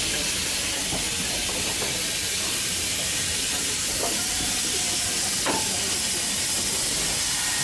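BR Standard Class 4MT steam locomotive hissing steadily as it lets off steam, with two faint clicks in the second half.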